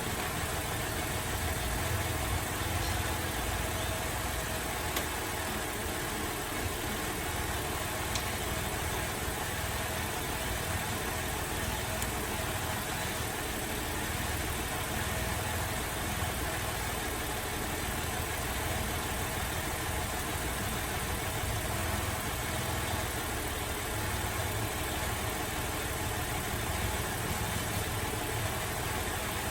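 Holden Alloytec V6 idling rough and uneven with a misfire, running steadily with no revving.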